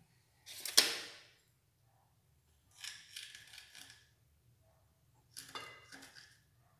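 Clear plastic sheet crinkling and rustling under the hands as pastry dough is lifted and rolled up on it, in three bursts, the first and loudest about half a second in.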